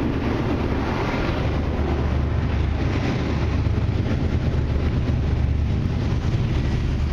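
Freight train approaching behind a lash-up of four CN diesel-electric locomotives: a steady low rumble of the engines, growing a little louder as the train nears.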